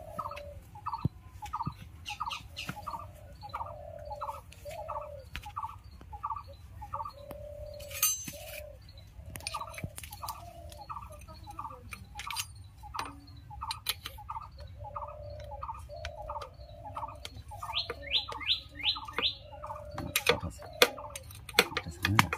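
A bird calling over and over, a short high note followed by a lower held one, about one and a half times a second, with a quick run of higher rising chirps near the end. Scattered sharp metal clicks and taps sound in between.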